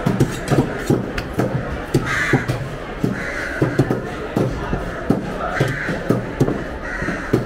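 Heavy knives chopping fresh tuna on round wooden chopping blocks: a quick, uneven run of knocks, about two or three a second. Crows caw four times over the chopping.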